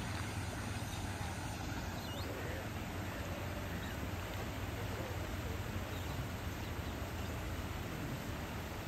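Steady outdoor background noise: an even hiss over a low, steady hum, with no distinct events.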